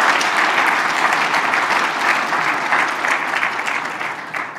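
Audience applauding, tapering off toward the end.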